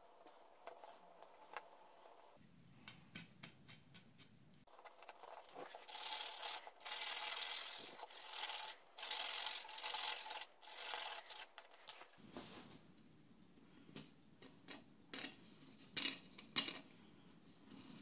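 Small wooden toy parts handled and rubbed by hand: a run of scraping strokes with short breaks through the middle, with light clicks and knocks of wooden pieces before and after.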